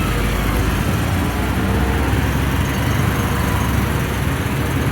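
Motorcycle engine running steadily, with wind and road noise.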